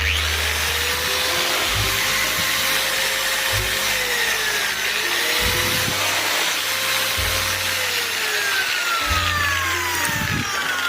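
Angle grinder running under load, with a loud, steady hiss of grinding or cutting. The motor's pitch sags and recovers several times as the work is pressed against the disc. It starts suddenly.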